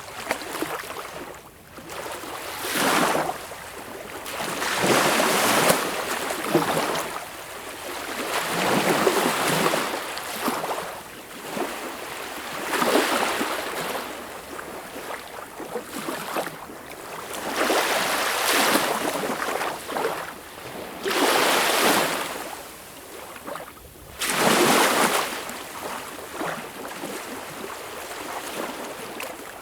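Sea waves washing in on a shore, a hissing surge that swells and falls away about seven times, every few seconds at an uneven pace.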